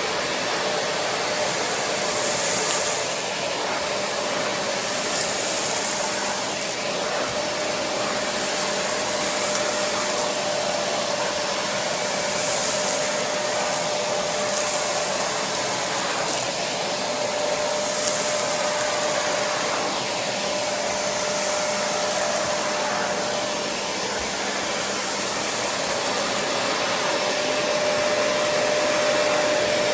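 Hoover TCP2010020 2000-watt vacuum cleaner running continuously with a steady whine. Its suction hiss swells and eases every two to three seconds.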